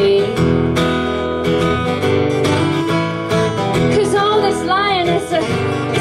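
Acoustic country band playing an instrumental passage between sung lines: strummed acoustic guitar with a lead line that bends up and down in pitch about four seconds in.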